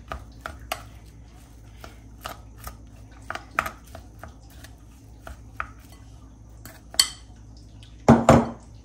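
A spatula stirring cooked rice in a glass bowl, tapping and scraping against the glass in irregular light clicks, with a louder knock about seven seconds in. Near the end the glass bowl is pushed aside across the counter with a louder clatter.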